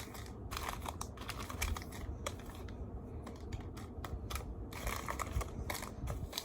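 Small blind boxes and their wrapping being handled and set down on a table: a run of light, irregular clicks and taps with some crinkling.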